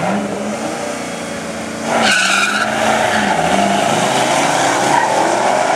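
Drag-racing V8 engines (a Pontiac Firebird Trans Am's LS1 and a Dodge Ram SRT-10's V10) revving at the starting line, then launching about two seconds in with a sudden loud burst of tire noise. Both engines then accelerate hard, their pitch climbing and dipping at the gear shifts.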